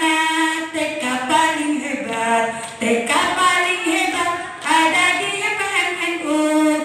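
Women singing a kindergarten yel-yel (group cheer song), led by one female voice into a microphone, with long held notes.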